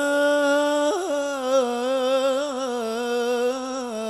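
A male singer holding one long, ornamented note of a sholawat, the pitch wavering throughout and stepping down near the end, heard through a stage PA system.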